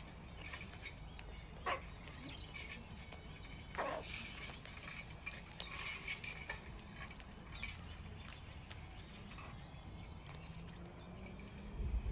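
Sulphur-crested cockatoos calling, fairly quiet harsh squawks scattered among many sharp clicks and cracks, with two short harsh calls about two and four seconds in.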